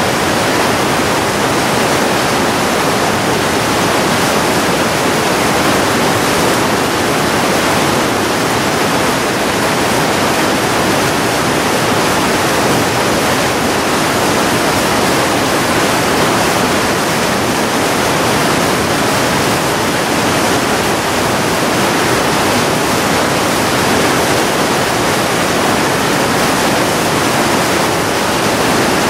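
South Boulder Creek's rushing water: a loud, steady rush of fast-flowing creek with no change in level.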